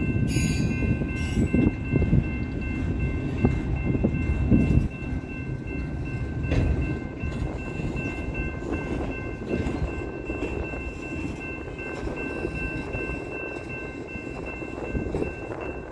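Freight train cars (multilevel autoracks) rolling past with a steady rumble of wheels on rail. The rumble is louder for the first five seconds, then eases, with an occasional wheel clack. Steady high-pitched tones ring over it.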